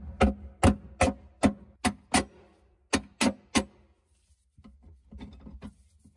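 Regular sharp metal taps, about two or three a second with a slight ring, as tools work the bolts loose from the stainless chainplate set in cured epoxy. The taps pause after about four seconds, then come back fainter.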